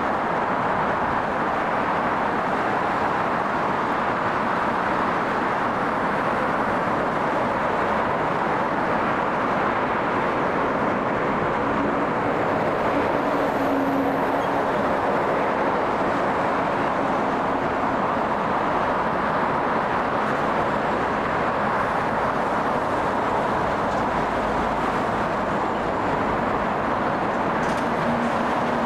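Aircraft engines running at an airfield, a steady rushing noise that holds at one level throughout, with a faint low hum coming in briefly about halfway through and again near the end.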